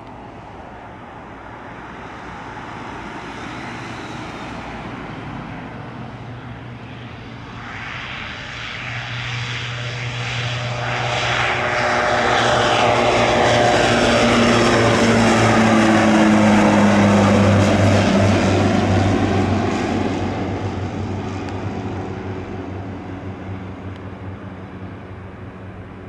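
Cessna 208B Grand Caravan's single turboprop engine and propeller at takeoff power, growing louder as the plane rolls and climbs toward and over the listener. As it passes, the pitch drops, and the sound then fades as it flies away.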